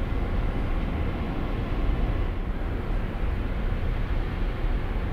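Large ro-ro passenger ferry's engines and machinery giving a steady low rumble as it manoeuvres in close, with a faint high steady whine above it.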